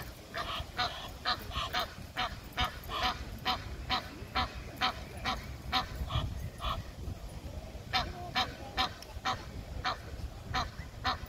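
Egyptian goose honking: a long run of short, harsh honks, about two to three a second, with a brief pause a little past the middle.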